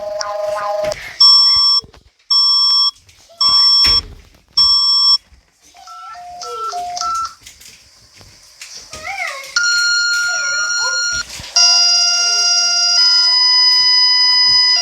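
Synthesized emergency-alert tones. First come four short steady beeps, each several tones at once, about a second apart. Then a few brief lower beeps and some wavering pitch sweeps, a steady alert tone, and finally a sustained multi-tone alarm tone that holds to the end.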